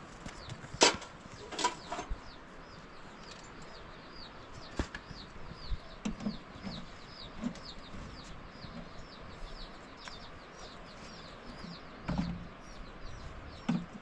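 A small bird calling over and over, a short high falling chirp repeated two or three times a second. Two sharp knocks about a second in are the loudest sounds, and a few short low sounds come later.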